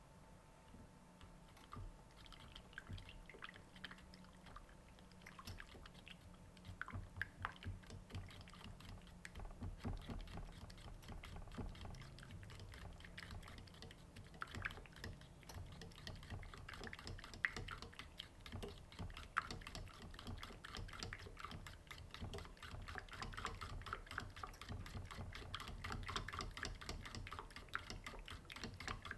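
A metal fork stirring and beating a butter and cream cheese mixture in a steel pan, with quick light clicks and scrapes of the fork against the metal. The clicking is sparse at first and grows busier and more continuous from about ten seconds in.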